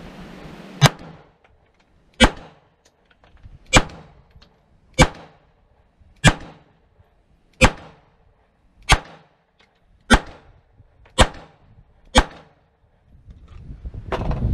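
Semi-automatic pistol fired in slow, deliberate single shots: ten sharp reports, one every second and a quarter or so.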